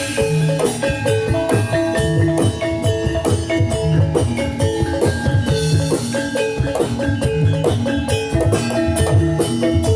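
Jathilan gamelan music played over a sound system: metallophones ring out a repeating melodic cycle over steady hand-drum strokes.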